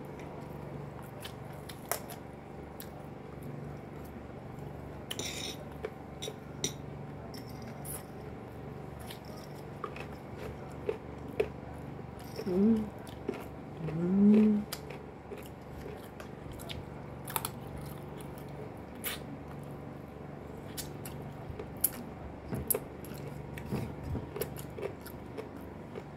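Close-up eating sounds: chewing and mouth noises with scattered light clicks and taps, as a fork works in a glass dish. Two short hummed 'mm' sounds come about halfway through, over a steady low hum.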